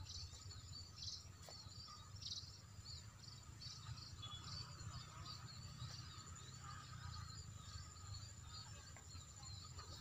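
Faint, scattered chirping from a flock of munias in a rice paddy, many short calls overlapping, over a steady high insect drone and a low rumble.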